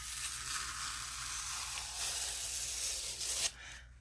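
An adhesive Chalk Couture silkscreen transfer being peeled off the decorated surface, a steady crackling hiss that stops suddenly a little after three seconds in.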